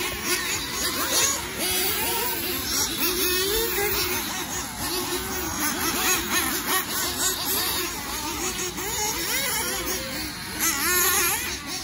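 Several nitro-powered RC buggy engines running together, their high-pitched whine rising and falling over and over as the cars throttle up on the straights and back off for the corners.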